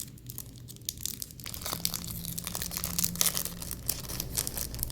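Crinkling of a thin plastic packet being handled and opened: a dense run of small crackles that grows busier after about a second and a half.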